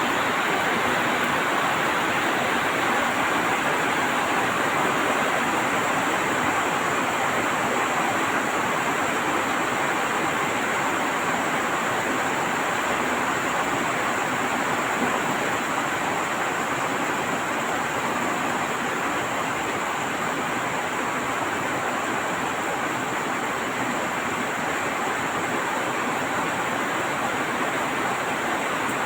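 Heavy rain falling, a steady even hiss that holds without letting up.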